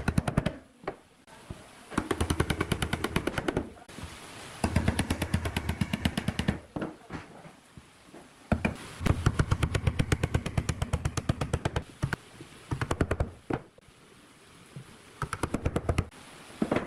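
Cordless impact driver driving screws into pine chair slats: repeated bursts of fast rattling hammer blows, each a second or two long, over the hum of the motor, with short pauses between screws.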